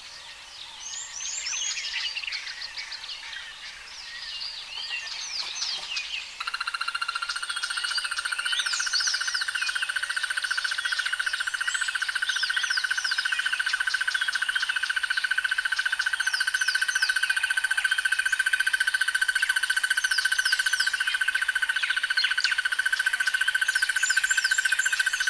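Crested barbet giving its long, steady, very rapid trill, which starts about six seconds in and runs on unbroken. It sounds much like a fat insect or a mechanical implement. Before the trill and over it come other birds' short chirps.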